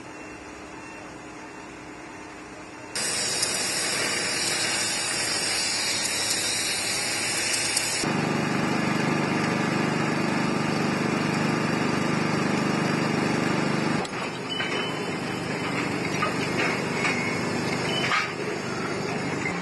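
Steady machinery noise and hiss that changes abruptly several times. A low hum gives way about three seconds in to a loud hiss for about five seconds, then to a lower machine drone, then to fainter noise with small clicks and knocks near the end.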